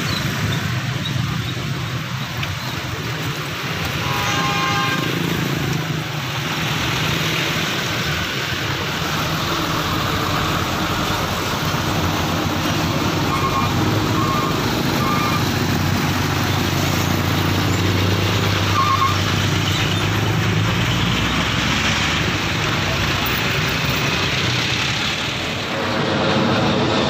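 Road traffic at a railway level crossing: motorbikes and cars running past, with a few short horn toots about 4 s in and again in the middle. Near the end the noise of a jet airliner taking off swells in.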